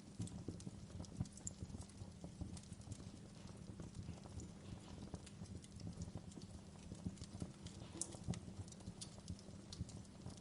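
Fire crackling: a steady low rumble of flame with many irregular, sharp pops and snaps scattered throughout.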